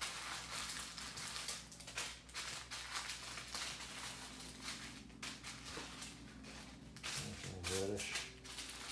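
Small plastic zip-top bags of diamond painting drills rustling and crinkling in irregular bursts as they are picked up and shuffled around on a wooden tabletop.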